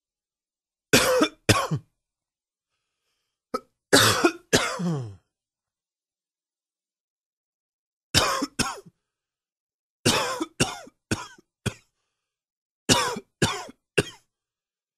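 A man's morning smoker's cough: about five short bouts of two to four coughs each, with silent pauses of one to three seconds between them.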